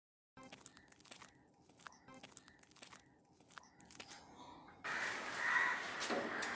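Faint footsteps, a few steps a second. From about five seconds in comes a louder scraping and rattling as a hand works the bolt latch of a rusty metal gate.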